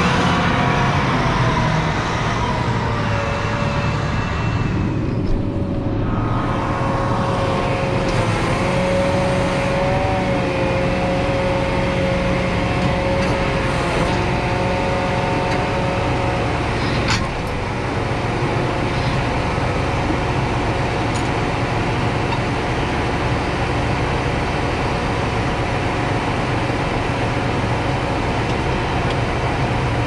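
John Deere 8260R's 9.0-litre six-cylinder PowerTech diesel idling steadily, heard from inside the cab, with a high whine over it that rises a few seconds in and holds until about halfway. A single click then comes, and the level dips slightly.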